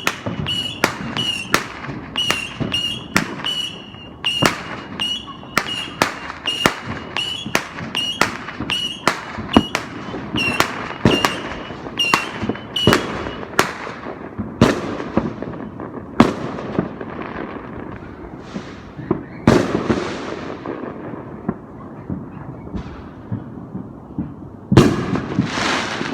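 A multi-shot firework (a 'British bullet rocket') firing a rapid string of sharp shots, about one and a half a second, each with a brief high whistle. After about 13 seconds the string gives way to scattered, echoing firework bangs from a display further off, with a loud one near the end.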